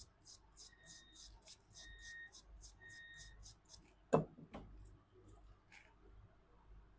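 A brush scrubbing a phone's circuit board in quick, even strokes, about two a second, cleaning the charging-port pads. Three short electronic beeps sound about a second apart, and a sharp knock on the bench comes about four seconds in.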